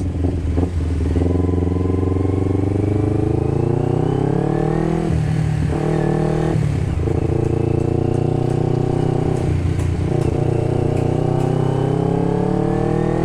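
Kawasaki Ninja 250R's carburetted parallel-twin engine through an open Termignoni megaphone exhaust, accelerating from a standstill with a few crackles in the first second. It revs up, drops in pitch at two upshifts about five and six and a half seconds in, then pulls steadily higher again. The owner says the engine pops ("nembak-nembak") because the stock size-38 pilot jet is too small for the open megaphone, leaving it running lean.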